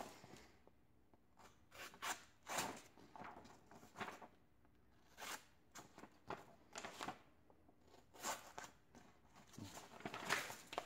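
A folding-knife blade drawn through a sheet of paper to test its edge: a dozen or so faint, short scraping strokes at irregular intervals. The edge is dulled from cutting cardboard and rope, "pretty toast."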